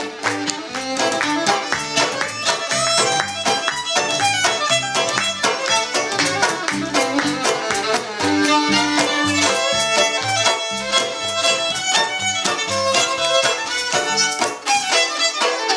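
Live contra folk tune played on a bowed fiddle carrying the melody, over an upright double bass plucking a steady walking beat.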